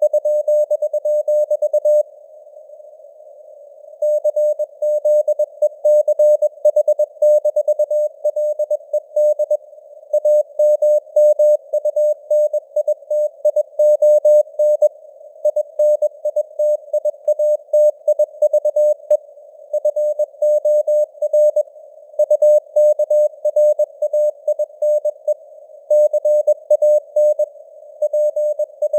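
Morse code (CW) sent at 21 words per minute: a single mid-pitched tone keyed on and off in dots and dashes, inside a narrow band of simulated radio hiss, with the signal strength fading up and down (QSB). The keying stops for about two seconds near the start, then runs on.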